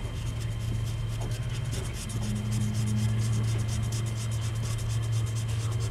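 Pen scratching on a sketchbook page in quick, repeated shading strokes, over the steady low hum of a moving train carriage.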